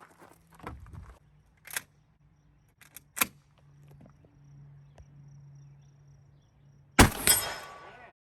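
A few sharp metallic clicks of a Beretta 1301 semi-automatic 12-gauge shotgun being handled, then a single shot about seven seconds in, with a second crack just after and a ringing decay of about a second.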